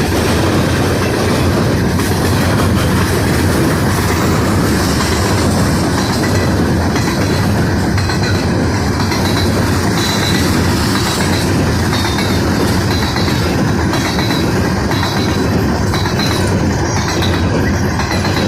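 A freight train rolling past close by: a loud, steady rumble with the clatter of wheels over rail joints and a faint high wheel squeal now and then.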